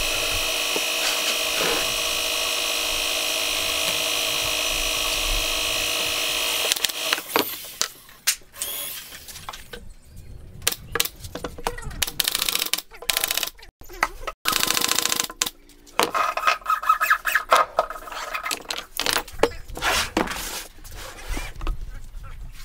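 An air compressor's motor runs steadily for the first seven seconds or so, then cuts off. After that, a pneumatic nail gun fires irregular single shots into plywood panels, sharp knocks with short hisses of air in between.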